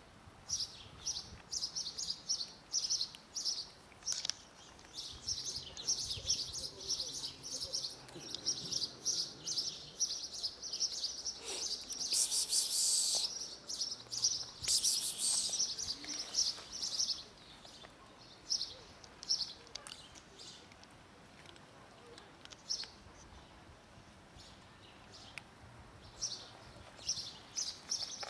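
Small birds chirping in quick, repeated high chirps, busiest through the first two-thirds and sparser after. Two brief, louder hissing rushes come about halfway through.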